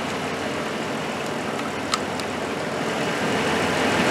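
Car engine idling steadily, growing slightly louder near the end. Around the middle come a few light, sharp metallic clicks as an R-134a hose quick-coupler is snapped onto the manifold gauge set's side parking port.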